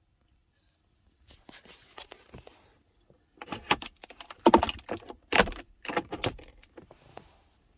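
Clicking, rattling handling noises of a small plastic gadget being fiddled with, loudest in a cluster of sharp knocks in the middle.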